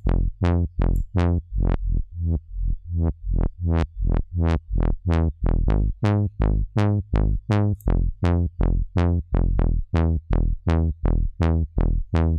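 Saw-wave synth bass from Native Instruments Massive, an 'elephant' trombone-style deep house bass patch, playing a looping line of short notes about four a second. Each note opens bright and closes quickly as the filter envelope sweeps its low-pass filter down. The notes turn duller about two seconds in and bright again a couple of seconds later as the cutoff is moved.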